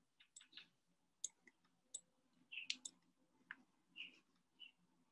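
Faint, irregular clicks and taps of a computer keyboard and mouse.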